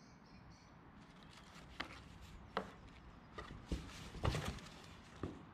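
A cat moving about in a box, making irregular scratches and knocks against it, about half a dozen, the loudest a cluster about four seconds in.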